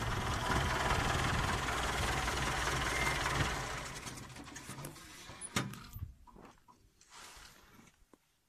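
Steady rumble of an idling vehicle engine that fades away about halfway through, with two sharp clicks as it dies down.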